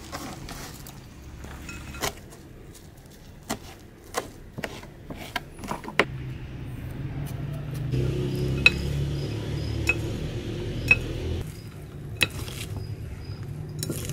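A knife and a wooden spoon tossing chopped salad in a ribbed glass bowl: scattered clinks of the knife against the glass, some ringing briefly. A low hum runs underneath and grows louder for a few seconds past the middle.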